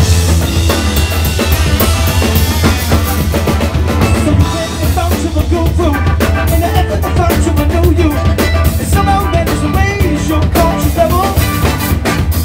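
Live band playing: a drum kit with busy cymbals, snare and kick drum, electric bass and electric guitar. A wavering melody line rises and falls above the band from about five seconds in.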